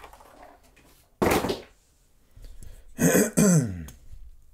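A man clearing his throat twice: a short rough burst about a second in, then a longer, louder one near the end that falls in pitch.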